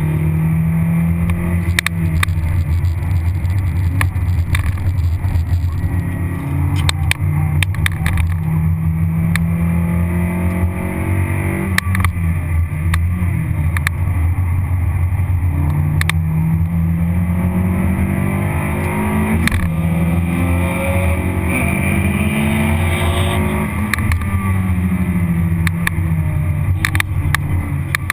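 Toyota Vitz RS engine heard from inside the cabin on a hot lap, its note climbing under hard acceleration and dropping back each time the driver lifts and shifts for a corner, several times over. Short clicks and knocks come through here and there.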